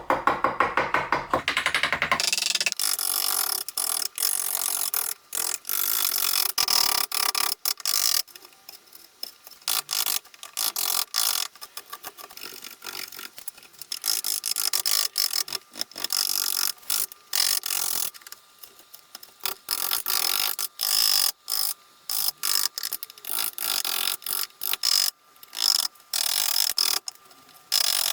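A carving tool working wood in repeated scraping strokes, each a second or two long with short breaks between them, after a quick run of even clicks at the start.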